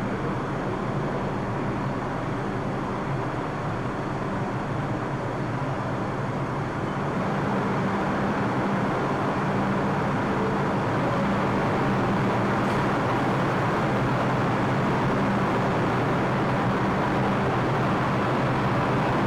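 New York City subway train running, a steady rumble with a low hum, growing louder about eight seconds in and then holding steady as the train leaves the station.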